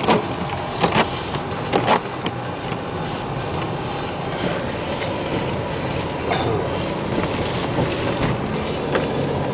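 Steady rushing noise of strong wind and rain in a storm, with a few sharp knocks in the first two seconds.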